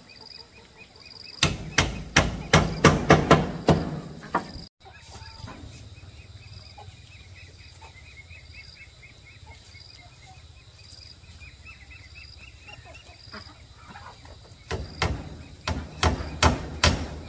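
Hammer nailing wooden slats onto a railing: two runs of quick strikes, about four a second, starting about a second and a half in and again near the end. Insects chirp steadily in between.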